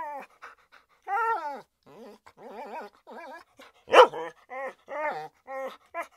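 A dog whining in a run of short, high, wavering cries, with one loud sharp bark about four seconds in.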